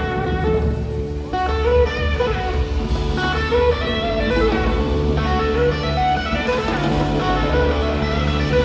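Live band playing an instrumental blues-rock jam: an electric guitar plays a lead line of separate held notes over a steady bass line.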